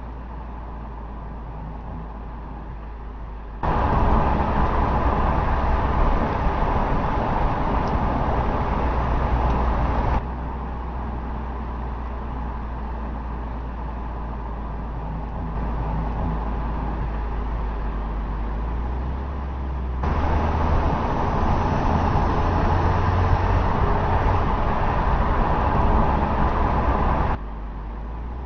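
Mercedes-Benz C-Class sedan driving: steady road and tyre noise over a low rumble, jumping abruptly louder and quieter several times as the shots change.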